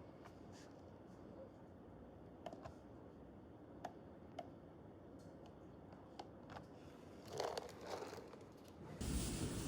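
Quiet room with a few faint, isolated light clicks and a short rustle near the end.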